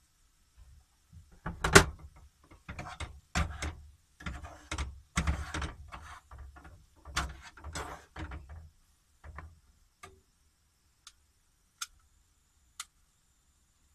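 Cooking utensils scraping and knocking against a frying pan and a ceramic bowl as fried rice is scooped out of the pan: a string of irregular scrapes and knocks, the loudest a sharp knock about two seconds in. A few single light clicks follow near the end.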